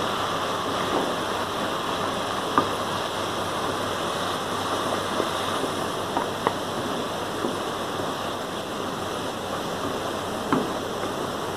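Mutton pieces and ginger-garlic paste sizzling steadily in hot oil in a karahi, with a few sharp clicks of the spatula against the pan as it is stirred.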